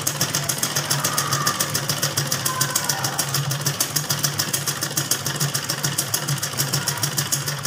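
Black gold-decaled sewing machine running at a steady fast pace, stitching a long straight seam: a rapid, even clatter of the needle mechanism over a steady hum, stopping abruptly at the end.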